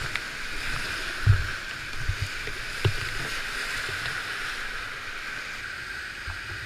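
Whitewater rushing steadily through the rapids of a small flooded creek, heard from a kayak running it, with a few low thumps as the boat and paddle hit the water; the loudest thump comes about a second in.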